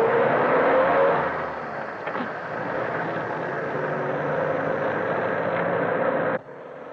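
BMC Austin truck engine revving hard under load as the truck pulls out of deep mud. It rises in pitch over the first second, then runs steadily, and cuts off abruptly near the end.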